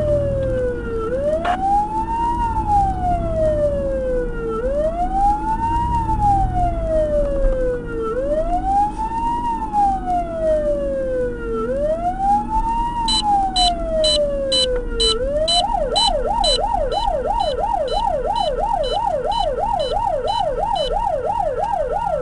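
Fire truck's electronic siren on a slow wail, rising and falling about every three and a half seconds, then switching about fifteen seconds in to a fast yelp of about three cycles a second. Shortly before the switch a rapid high beeping joins in, over the low rumble of the engine.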